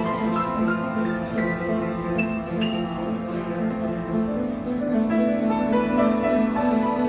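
Solo piano playing an original composition, sustained low notes under a run of quick higher notes.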